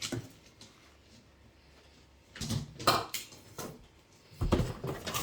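Handling noise from unpacking shop vac accessories: a few short plastic knocks and rustles about halfway through and again near the end, after a quiet start.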